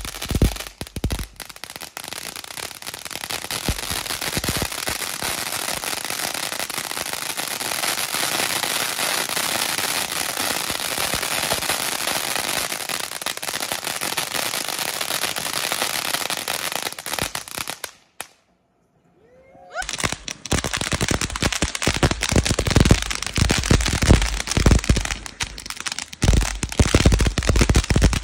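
Ground fountain fireworks spraying sparks. First a long, steady hiss laced with fine crackle, then after a brief break, loud, dense crackling and popping.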